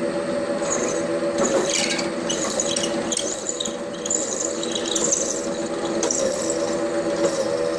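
Milling machine spindle running steadily as a 17/32 drill bit cuts a hole in aluminum, with an on-and-off high-pitched squeal from the bit in the metal.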